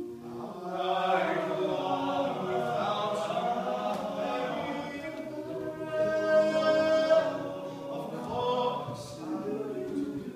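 An all-male a cappella group singing in close harmony, with a held note swelling to the loudest point about six seconds in.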